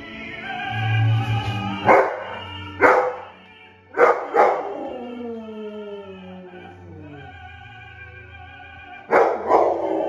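Golden retriever barking and howling along with an operatic tenor and orchestra playing on the TV. Its loud yelps come in bursts about two seconds in, around four seconds, and again near the end, each sliding down into a falling howl.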